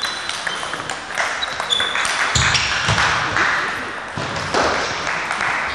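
Table tennis rally: the celluloid ball clicking off the bats and the table, over and over, with brief high shoe squeaks on the hall floor. Voices echo in the hall, busiest in the middle.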